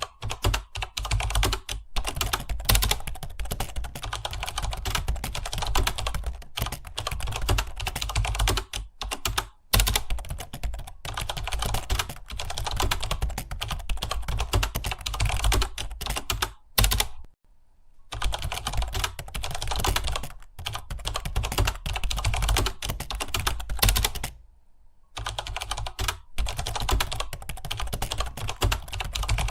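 Continuous fast typing on a computer keyboard, a dense patter of keystrokes that stops briefly twice, a little over halfway through and again later on.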